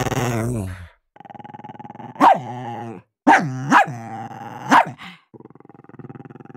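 Dog growling, the growl fading out about a second in, then a low growl running on under four sharp, loud barks in the middle.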